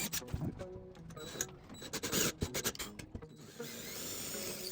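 A drill boring out old wooden dowels in oak, with irregular clicking and grinding as the bit chews through, and a steadier whir near the end as it breaks through the bottom of the dowel holes.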